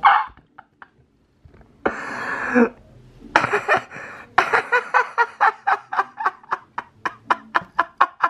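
A person laughing in quick, even pulses of about four or five a second. Near the start there is a short pause, then two longer breathy sounds, before the pulses of laughter pick up again.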